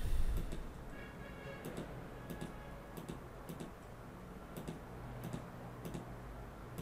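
Computer mouse clicking: a string of light, irregular clicks, some in quick pairs, as page links are opened one after another in new browser tabs. A short low thump right at the start.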